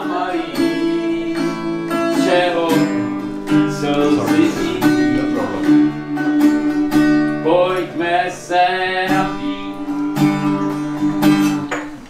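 Acoustic guitar strumming with a voice singing along.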